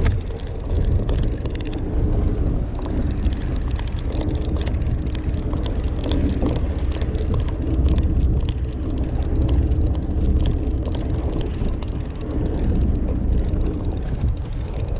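Steady low rumble with a faint steady hum: a fishing boat's engine running at idle, with wind buffeting the microphone.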